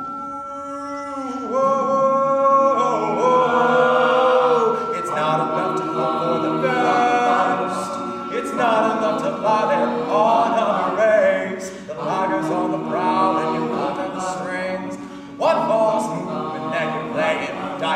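Mixed-voice a cappella group singing, a male soloist leading over layered backing harmonies sung by the group.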